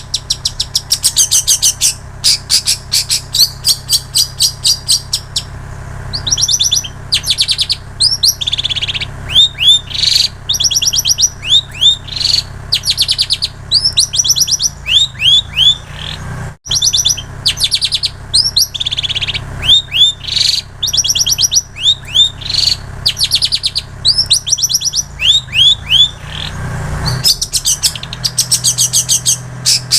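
Long-tailed shrike singing a continuous mimicked song of fast rattling trills alternating with short sweeping whistles, copying plain prinia and canary phrases. A steady low hum runs underneath, with a brief break about 17 seconds in.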